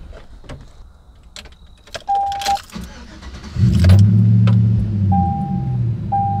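Pickup truck's door handle clicks and keys jangle, then a thud about two seconds in. A single-tone dashboard chime sounds three times, and about three and a half seconds in the engine starts and settles into a steady idle.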